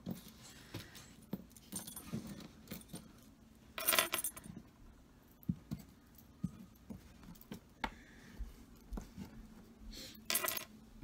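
Metal costume-jewelry earrings clinking and jingling as they are handled and set down on a wooden tabletop, with small scattered clicks and two louder jingles, one about four seconds in and one near the end.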